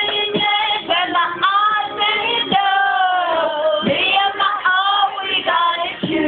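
Two women singing together, a mother and her daughter, tipsily and loosely, their voices sliding between held notes.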